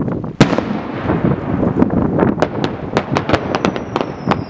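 Aerial fireworks display: a loud sharp shell burst about half a second in, then a run of quick sharp pops from about two seconds on, and a whistle falling in pitch near the end, over a steady low rumble.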